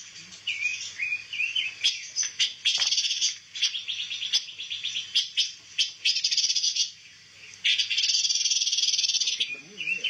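Caged pancawarna songbirds calling: quick sharp chirps broken by several bouts of fast, buzzy rattling trill, the longest lasting about a second and a half near the end.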